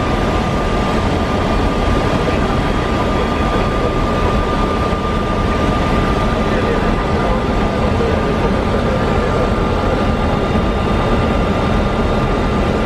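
Steady flight-deck noise of an Airbus A300-600 in flight on approach: a constant rush of airflow and engine noise with a thin, steady high hum running through it.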